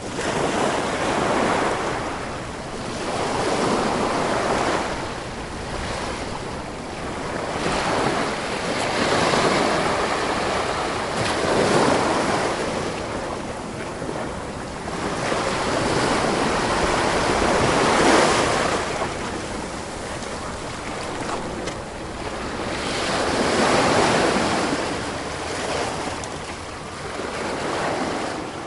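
Sea surf: waves breaking and washing up one after another, the rushing swelling and ebbing every few seconds.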